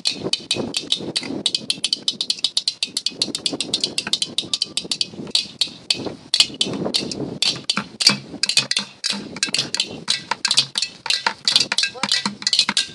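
Thappu (parai) frame drums beaten with sticks in a fast, steady rhythm of about eight sharp strikes a second, drumming for a dance.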